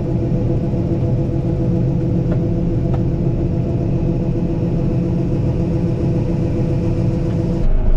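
A farm machine's engine running steadily at a constant speed, a low rumble with a steady hum over it.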